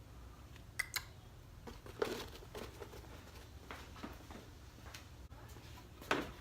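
A few sharp clicks and knocks from parts being handled while a cold air intake is swapped: two quick clicks about a second in, a louder knock a second later, and another knock near the end, over a low steady hum.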